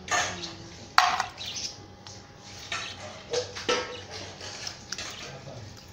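Wet handling noises from live crabs being washed and moved by hand: irregular splashes, scrapes and knocks, the sharpest knock about a second in.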